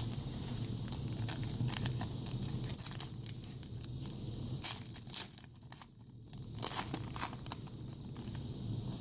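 A foil trading-card pack wrapper being torn open and crinkled by hand, in short irregular crackles, with a few louder rips about halfway through and near seven seconds.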